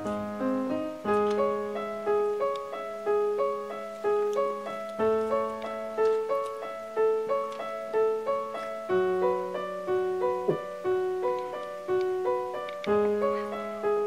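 Background solo piano music: a gentle, repeating pattern of notes, about two a second, over a low note that changes every four seconds or so.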